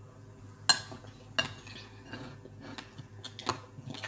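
Wooden spoons knocking and scraping against plates during fast eating, with a few sharp clicks, the loudest about a second in, over a low steady hum.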